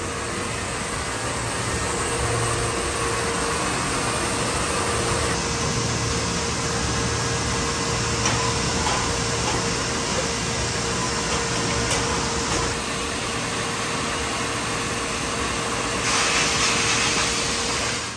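Multi-spindle NC router machining clear acrylic sheet, with its dust-extraction suction running: a steady whooshing machine noise with a constant mid-pitched tone and a low hum under it. The hiss grows a little louder near the end.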